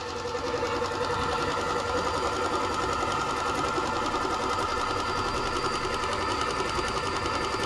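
Singer Fitline 6700 computerized sewing machine running steadily at speed, its needle stitching a zigzag edge stitch, picking up slightly about a second in.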